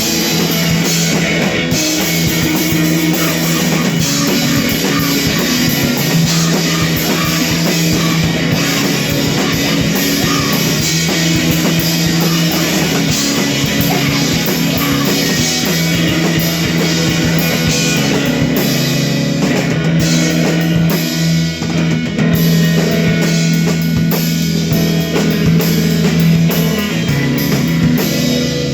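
An emo rock band playing live, loud, with a full drum kit and electric guitars driving steadily.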